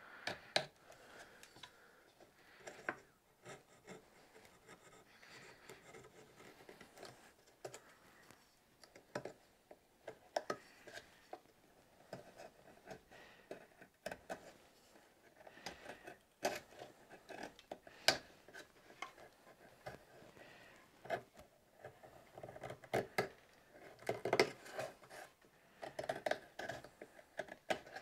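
Carving knife scraping and paring hardened super glue off a wood carving, in faint, irregular scrapes and small ticks that come thicker near the end.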